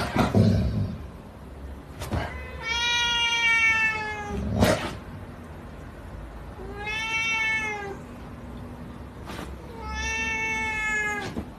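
Orange tabby kitten meowing three times, each meow long and high, about a second and a half, sagging slightly in pitch at the end. A few brief knocks come between the meows.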